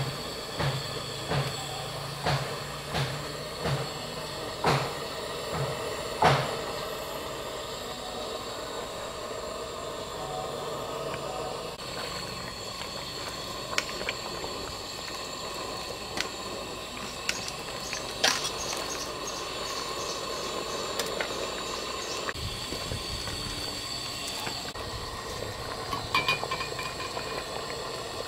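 Steady hissing from a stainless steel pot of chicken curry simmering over a gas burner, with a run of sharp knocks about once a second in the first six seconds and a few scattered clinks of a ladle against the pot later on.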